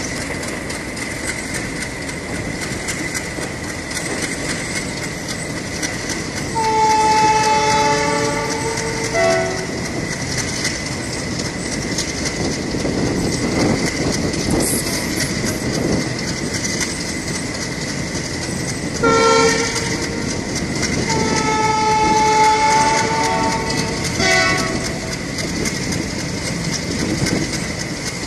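Indian passenger trains running side by side, with steady rolling noise and wheel clatter. A train horn sounds over it in four blasts: a long one about a quarter of the way in, then a short one, another long one and a short one past the middle.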